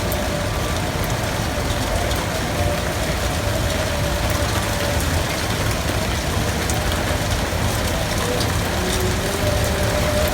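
Heavy rain falling steadily with strong wind, a constant dense hiss over a deep rumble, with scattered faint drop ticks.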